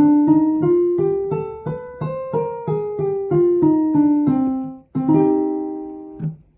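Piano playing a C melodic minor scale from middle C, one note at a time: it goes up an octave with A natural and B natural, then comes back down with B flat and A flat. It ends on one more held note near the end.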